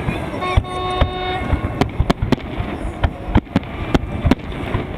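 Fireworks salute: a rapid, irregular string of sharp bangs, with a steady tone lasting about a second near the start.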